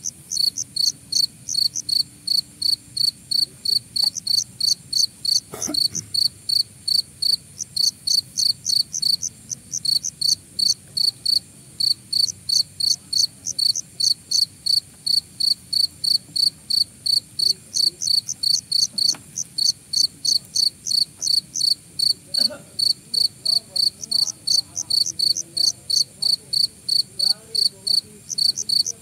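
A cricket chirping loudly and steadily, short high chirps evenly spaced at about three a second.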